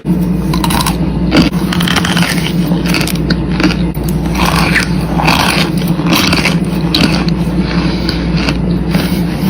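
Close-miked crunching: repeated bites and chewing of something hard and crunchy, over a steady low hum.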